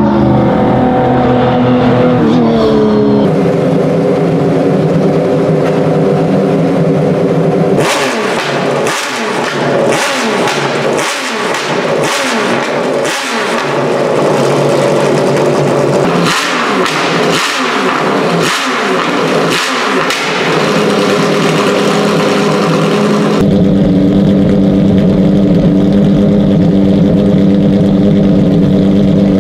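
Porsche 911 RSR (991.2) racing car's mid-mounted 4.0-litre flat-six on an open exhaust, very loud. Its note falls in pitch over the first few seconds, then the engine idles and is blipped again and again, a quick rev up and back down each time, before settling back to a steady idle near the end.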